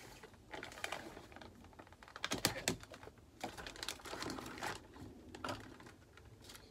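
Clear plastic blister packaging and small plastic model pieces being handled, making irregular crinkles and light clicks, busiest about two and a half seconds in.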